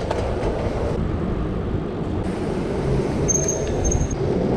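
Steady wind rumble and rolling noise on a handlebar-mounted camera as an e-bike rides along a city street. A brief high-pitched squeal about three and a half seconds in.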